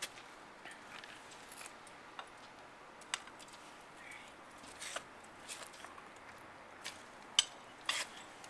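Faint, scattered clicks and light knocks of handling, the sharpest about seven seconds in, over a quiet background hiss.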